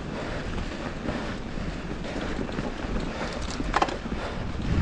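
Wind buffeting an action camera's microphone while moving along a loose dirt trail, a steady rumbling rush. A brief sharp sound cuts through about four seconds in.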